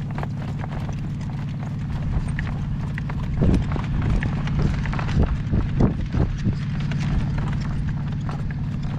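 A ridden horse's hooves clip-clopping on the ground in a steady run of footfalls. Between about three and a half and six and a half seconds in, a cluster of louder low rumbles stands out over the hoofbeats.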